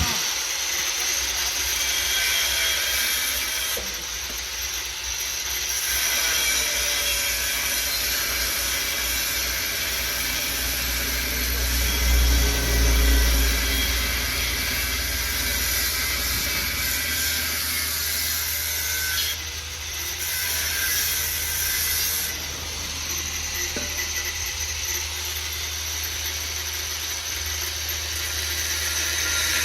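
Workshop power tool working on metal: a continuous high, rasping noise over a low hum, changing briefly a few times.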